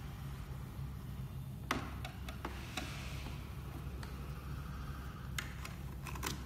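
Light clicks and taps of a screwdriver and small screws against the open projector chassis during disassembly, with brief handling rustle; the sharpest click comes about two seconds in and a quick cluster of clicks near the end, over a steady low hum.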